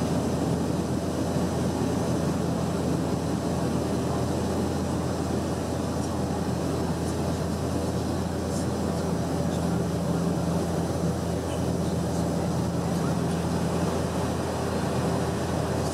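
Steady in-flight cabin drone of a Bombardier Dash 8-400's Pratt & Whitney Canada PW150A turboprops and six-bladed propellers, heard inside the cabin beside the engine: an even low hum with a steady propeller tone.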